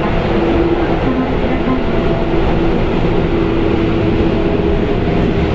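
Sendai Subway Namboku Line 1000 series train running, heard from inside the car: a steady, loud rumble of wheels on rail with a steady hum from the running gear.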